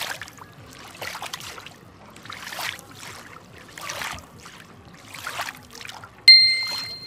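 Water sound effect: swishing splashes repeating about every second and a half, then a single bright chime about six seconds in that rings out.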